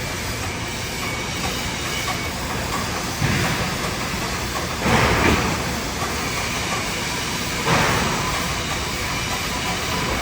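TIG (argon) welding arc on a pipe-to-flange root pass, hissing steadily, with three brief louder noises a couple of seconds apart.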